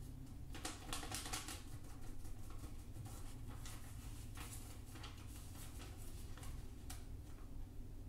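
A sheet of origami paper rustling and crackling as it is folded and creased by hand, in irregular clusters of crisp crinkles, over a faint steady low hum.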